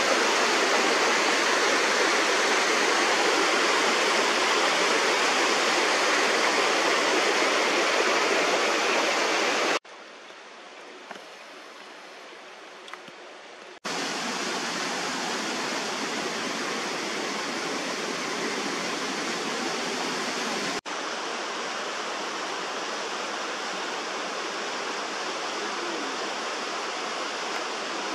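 Mountain creek rushing over rocks and small cascades, a steady loud rush of water. About ten seconds in it drops abruptly to a much fainter rush for some four seconds. Then a steady rush of a waterfall pouring down a rock gully comes back in, stepping down slightly once more.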